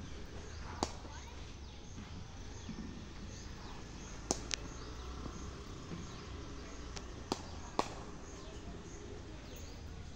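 Outdoor park ambience: a steady low hum with a faint high chirp repeating evenly, broken by five sharp clicks, two of them in quick pairs.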